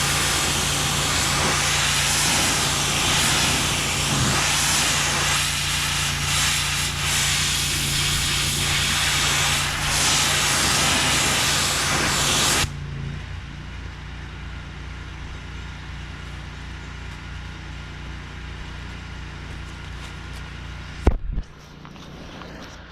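HydroTek 30005VS pressure washer spraying, a loud steady hiss of high-pressure water over the machine's running engine. The spray cuts off suddenly a little over halfway through as the trigger is let go. The engine keeps humming steadily at idle, and there is one sharp knock near the end.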